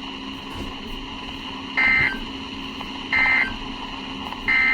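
Three short bursts of EAS SAME digital data tones, the warbling two-tone signal, about a second and a half apart over a steady radio hiss. This is the end-of-message code that closes a weather radio alert broadcast.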